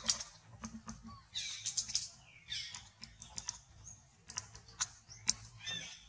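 A mother macaque and her clinging infant moving in a tree: irregular soft clicks and rustles, with a few short high squeaks.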